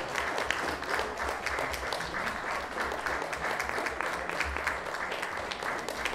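Audience applauding steadily: dense, continuous clapping.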